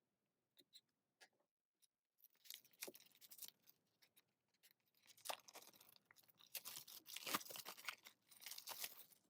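A few light clicks, then from about two seconds in, irregular crackling and tearing of the plastic wrapping as a sealed CD album is unwrapped.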